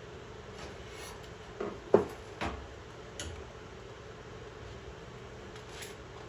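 A few sharp clicks and knocks of parts and screws being handled while reassembling a freeze dryer, the loudest about two seconds in, over a steady low hum.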